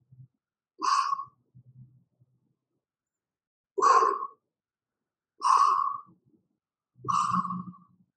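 A man's forceful exhales during butterfly crunches: four short puffs of breath, one with each crunch.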